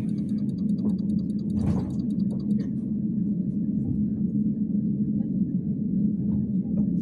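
Steady low rumble and hum inside a running Bogdan T701.10 trolleybus. A rapid, even ticking stops about two and a half seconds in, and a brief hiss comes just before it stops.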